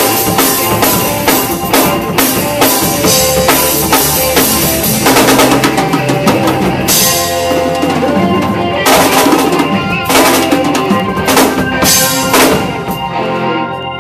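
A live band playing loudly, led by a drum kit: fast bass drum and snare hits with repeated cymbal crashes. Near the end the drums stop and a held keyboard chord rings on.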